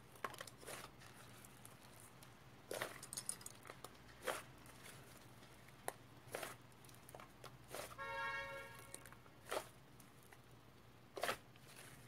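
Hands squeezing and kneading soft white slime: short wet squishes and crackling pops of trapped air every second or two, with one longer squeaky sound about two-thirds of the way through.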